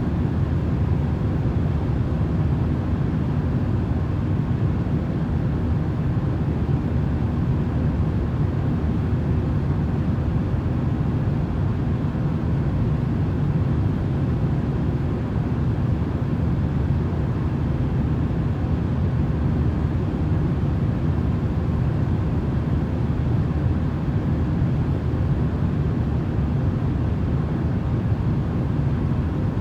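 Steady, low-pitched white-noise drone with a deep rumble and a few faint steady hums, unchanging throughout.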